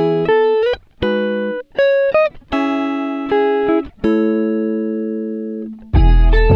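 Music of plucked guitar notes, each struck sharply and left to fade, with short gaps between phrases; a fuller, louder section with deep bass comes in near the end.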